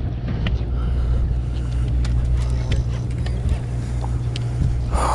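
Steady low drone of the boat's engine, with faint ticks from a baitcasting reel being cranked.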